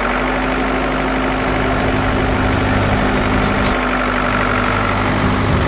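Komatsu PC300 excavator's diesel engine running steadily at idle, an even hum that holds the same pitch throughout.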